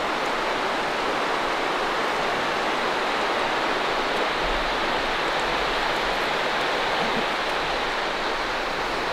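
Creek water rushing steadily, an unbroken hiss of running water.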